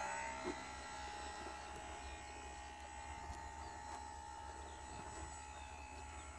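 Small RC model airplane's motor and propeller whining steadily overhead, fading in the first second as the plane flies off, over a low rumble of wind on the microphone.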